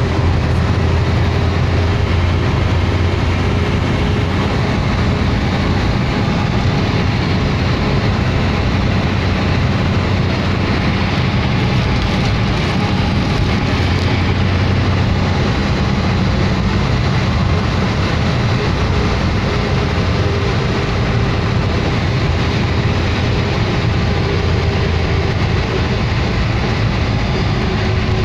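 Engine and road noise heard inside a moving vehicle's cab: a steady, loud low drone, its engine note holding even with no revving.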